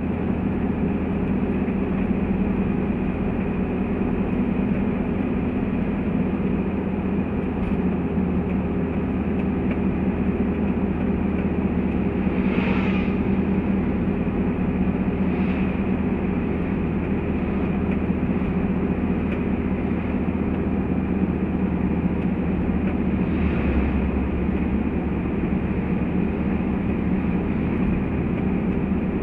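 Toyota Land Cruiser 70 cruising at steady road speed, heard from inside the cabin: an even engine drone with road and tyre noise. Brief swells from passing traffic come about halfway through and again near the end.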